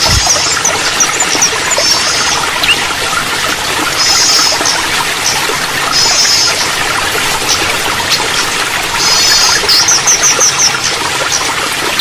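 Steady running water trickling, with a small songbird's high, rapid chirping trills repeating every second or two and quick up-and-down chirps between them.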